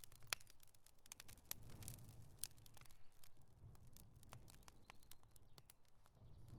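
Campfire crackling faintly: sparse, irregular sharp pops and snaps of burning wood over a soft low rumble.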